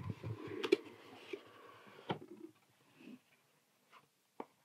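Cardboard box lid pulled open: cardboard scraping and rustling for about two and a half seconds, with a sharp snap under a second in and another about two seconds in, then a faint tap near the end.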